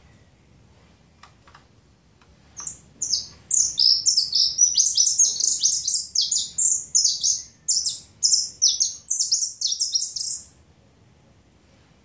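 Caged saffron finch singing: a couple of short notes a few seconds in, then a fast, dense run of high notes lasting about seven seconds that stops shortly before the end.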